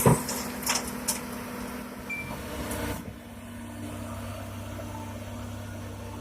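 Heavy diesel machinery running steadily while an excavator loads stones into a dump truck, with a few sharp clatters of rock in the first second. After about three seconds it settles to a steady low engine hum.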